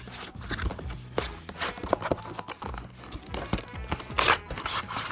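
Background music under the scraping and rustling of cardboard packaging being handled, with two loud scraping rushes near the end.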